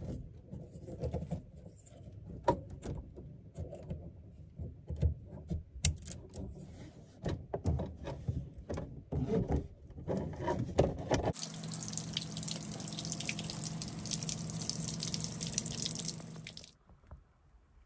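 Irregular clicks and knocks of hands working a faucet's braided supply hoses and fittings under a sink. Then, suddenly, a steady hiss of water escaping from a leak in the poly pipe plumbing, with a low steady hum under it, which stops about a second before the end.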